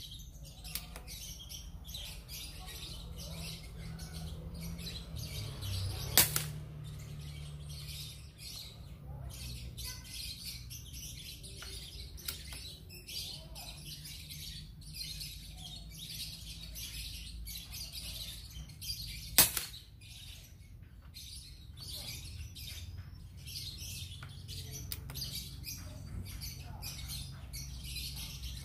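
Two shots from a GCMAG airgun, about thirteen seconds apart, each a single sharp report. Birds chirp steadily in the background.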